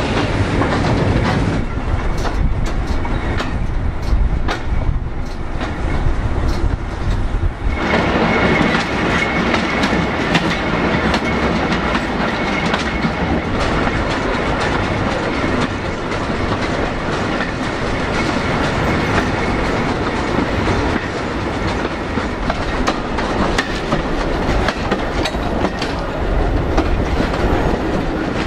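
Heritage train's wooden wagons running over jointed track: steady rumble and rattle with clickety-clack of the wheels over the rail joints. About a third of the way in a steady high-pitched wheel squeal joins as the train rounds a curve.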